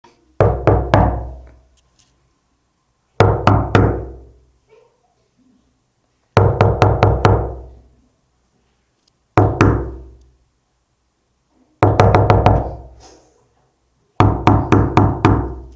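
Knuckles knocking on a door: six separate rounds of quick knocks, each of several raps with a short ring after them, about every three seconds, the last two rounds longer.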